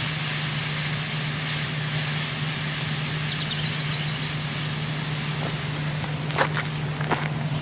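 A smoke ball firework burning with a steady hiss as it pours out coloured smoke, over a steady low hum. A few short knocks come in near the end.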